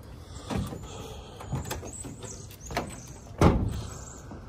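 A few short, dull thumps about a second apart, the loudest about three and a half seconds in.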